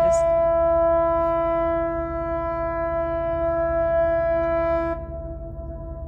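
Ship's horn from an icebreaker or freighter hidden in the fog, sounding one long steady blast of about five seconds. It then drops off suddenly to a faint lingering tone.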